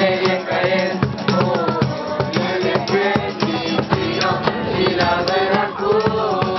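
Voices singing together to an acoustic guitar, with a cajón beating out a steady rhythm.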